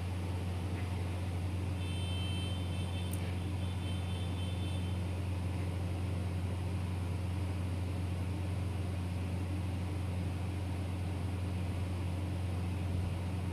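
Steady low machine hum with no clear rhythm, and a faint click about three seconds in.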